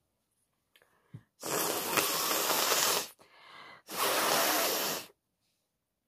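Two long, forceful blasts of breath from a person, the first a little longer, with a softer breath between them.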